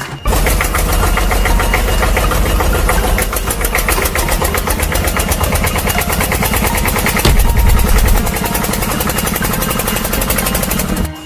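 Engine running with a rapid, even chugging, as of a diesel excavator, which grows louder and deeper for about a second around seven seconds in. The sound starts and stops abruptly.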